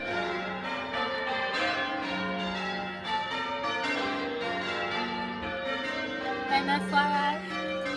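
Background music of chiming, bell-like notes over held lower tones.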